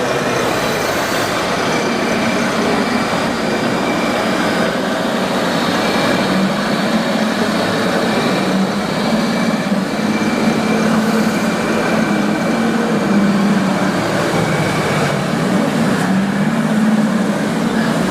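Steady din of a busy model-fair hall, with the hum of RC model construction machines running among the crowd noise.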